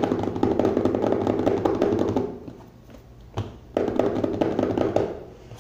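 Samsung Galaxy phone box sliding against its tight white paper sleeve under the hands: a dense, chattering rub in two bouts, the second starting a little under four seconds in.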